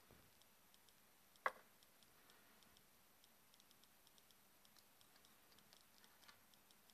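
Near silence with faint, rapid ticking, about three or four ticks a second, and one sharp click about a second and a half in.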